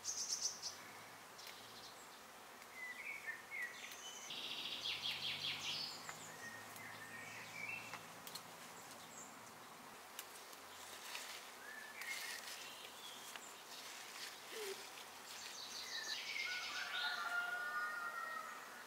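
Wild songbirds chirping and trilling over faint outdoor hiss: a string of short calls, a fast trill a few seconds in, and a louder run of gliding calls near the end.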